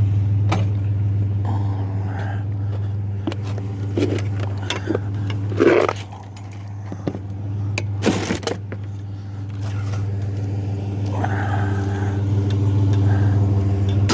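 Truck engine idling steadily, with scattered knocks and rattles of scrap metal being handled and loaded; the loudest knock comes about six seconds in.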